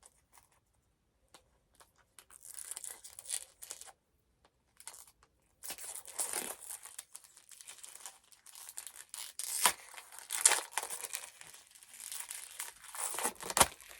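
Packaging being crinkled and torn open by hand: a quiet start, then irregular rustling and tearing that grows busier, with a couple of sharp crackles about ten seconds in.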